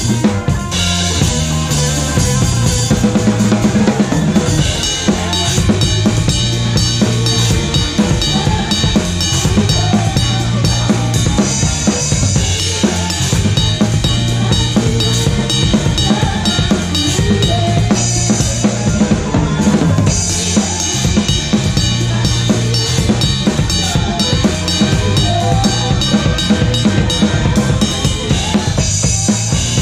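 Drum kit played close up in a live band: kick, snare and rim hits with cymbals ringing over them, and electric guitar and the rest of the band playing underneath.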